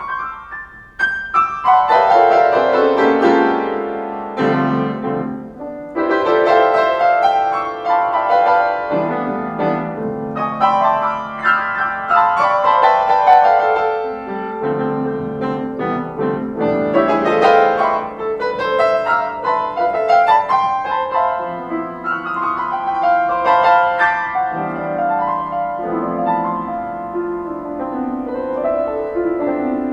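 Piano music: a continuous run of struck notes and chords, with a brief drop in level about a second in.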